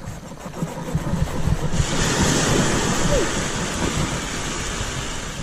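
Surf washing up on the beach: a rushing hiss that swells suddenly about two seconds in and slowly fades. Under it, a low rumble of wind on the microphone.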